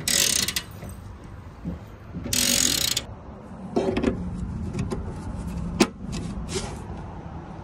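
Wrench turning a knockout punch to cut an extra conduit hole through a sheet-metal enclosure, heard as two short bursts of rasping clicks, then a few lighter clicks and one sharp click as plastic grommets are pressed into the holes.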